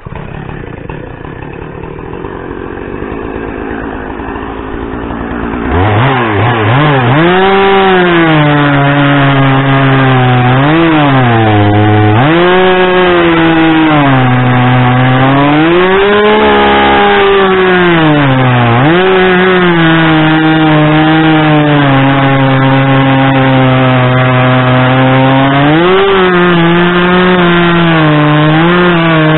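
Two-stroke gas chainsaw running quietly at first, then revved up about six seconds in and cutting through a log. The engine pitch sags each time the chain bites into the wood and climbs back as the load eases.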